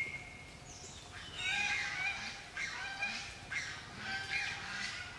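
Long-tailed macaques calling: a short falling cry at the start, then from about a second and a half in a rapid run of high-pitched calls, about two a second.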